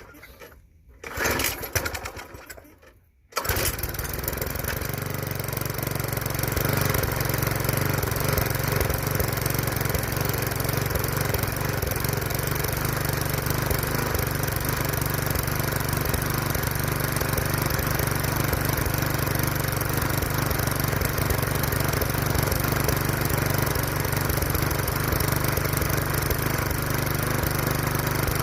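Bolens rototiller's small engine being pull-started: a pull on the recoil starter about a second in, then the engine catches about three and a half seconds in and runs steadily. It is running rough on its primer, a 'quick and dirty' attempt to clear whatever is clogging the carburetor.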